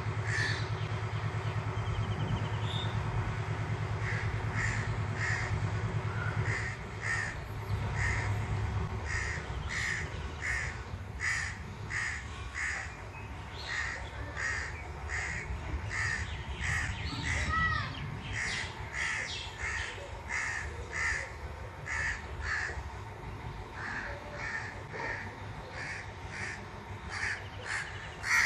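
A bird calling over and over in short calls, about two a second, with a low rumble underneath for the first few seconds.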